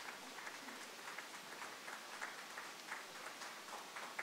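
A small audience applauding: faint, uneven clapping, many hands at once.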